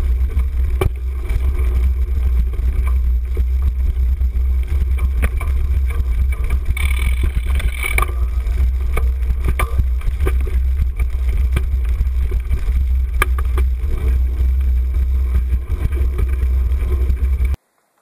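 Steady low wind rumble on the microphone of a handlebar-mounted camera on a cyclocross bike riding a leaf-covered dirt trail, with frequent clattering knocks as the bike goes over bumps. The sound cuts off suddenly near the end.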